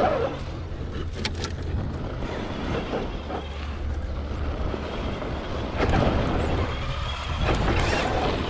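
Low, steady rumble of a 1/10 scale RC crawler climbing a dirt hill under power, heard from a camera mounted on the truck, with a few short clicks just over a second in.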